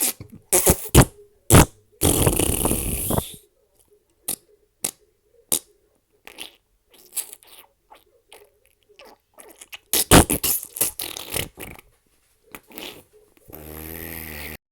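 Fart sound effects one after another: several short, sharp ones, a longer one about two seconds in, a quick run in the second half, and a low, buzzing fart near the end.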